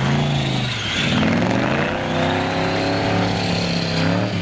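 Remote-control crawler car running: a small electric motor and gears whining, the pitch rising about a second in and then holding steady.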